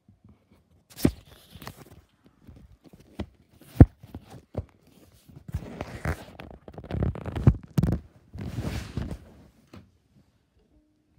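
Close handling noise from a phone being moved about: a few sharp knocks and bumps, the loudest about four seconds in, then bursts of rustling against the microphone for several seconds.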